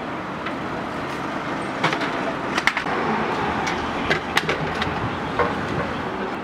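Outdoor food-stall ambience: a steady background rush with a quick run of sharp clinks about two seconds in and a few more around the middle and later, as of utensils and dishes being handled.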